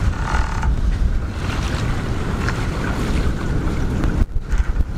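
Wind rumbling and buffeting on the microphone aboard a sailing catamaran under way, over a steady rush of wind and water. The rumble drops away unevenly for a moment near the end.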